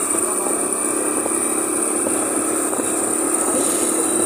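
Small motorcycle engine running steadily while riding along at an even pace, with a constant hiss of road and wind noise.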